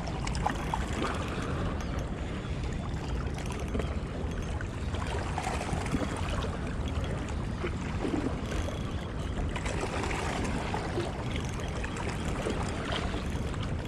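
Water lapping and trickling against the hull of a small boat, over a steady low rumble.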